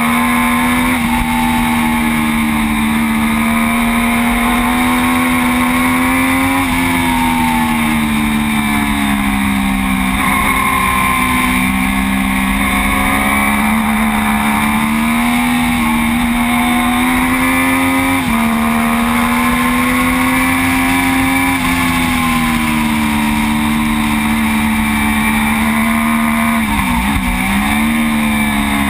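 Onboard sound of a Triumph Daytona 675's three-cylinder engine at racing speed. The engine note climbs and falls with throttle and gearshifts, with a quick drop and recovery near the end, over steady wind rush.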